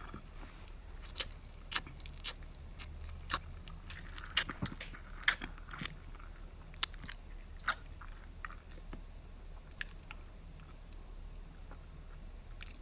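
A person chewing a mouthful of spaghetti: irregular wet mouth clicks, many in the first eight seconds and sparser after.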